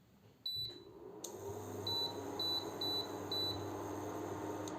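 Induction cooktop being switched on and set: one beep, then its cooling fan and hum start up and keep running, then four short beeps about half a second apart as the heat setting is pressed.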